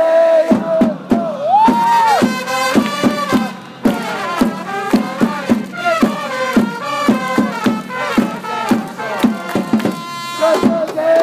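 A Japanese baseball outfield cheering section performing a fight song: trumpets carry the melody over a steady beat of drums and the fans' clapping, with the crowd singing along.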